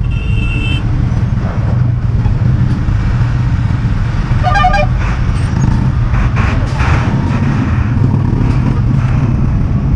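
Royal Enfield Thunderbird's single-cylinder engine running steadily at low speed through traffic, with vehicle horns beeping: a short high beep at the very start and a lower, fuller horn blast about four and a half seconds in.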